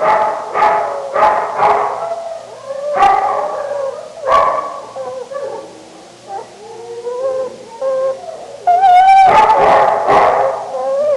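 Dog barking: a quick run of barks, then two louder single barks, then soft whimpering whines, and in the last seconds a loud drawn-out howling cry.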